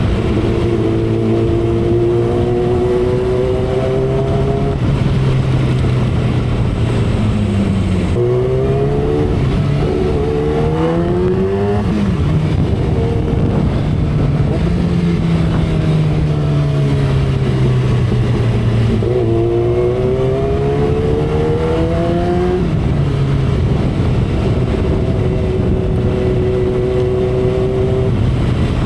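2012 Kawasaki Ninja ZX-10R inline-four engine and exhaust under way, heard from the rider's seat, its pitch climbing and falling several times with sudden drops in pitch a few times, over steady wind and road rush.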